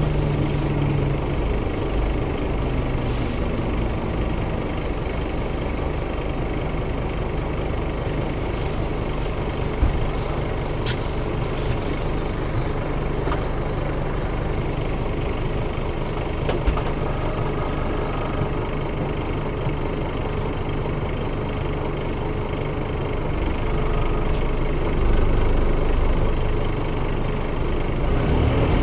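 Scania CN270UB city bus engine idling at a stop, heard from inside the passenger cabin, with a few short knocks and clicks. Near the end it grows louder for a couple of seconds as the doors close.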